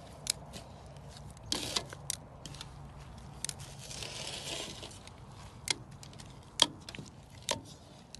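Metal kitchen tongs clicking and scraping as they toss flour-coated smelt in a plastic mixing bowl: scattered sharp clicks, with a brief scraping rustle a little after the middle.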